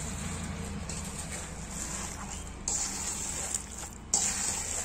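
Hands mixing and squeezing damp flattened rice in an aluminium bowl: soft squishing and rustling of the grains, with louder scrunches about three seconds and four seconds in, over a steady low hum.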